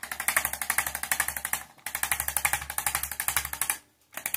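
Corded electric chiropractic adjusting instrument rapidly tapping against the upper back, about ten taps a second, in runs of about two seconds with a brief pause between them.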